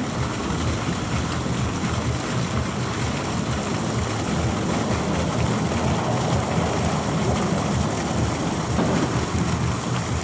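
Fountain water pouring from a jet and splashing into its basin: a steady rushing, splashing noise.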